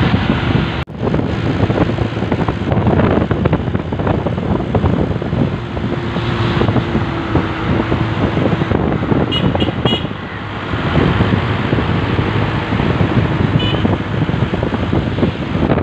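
Rushing wind and road noise from riding a motorbike through traffic, with a few short high beeps a little after halfway.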